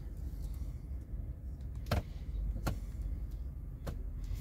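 2011 Chevrolet Tahoe's V8 idling, heard from inside the cabin as a steady low rumble, with a few sharp clicks, the loudest about two seconds in.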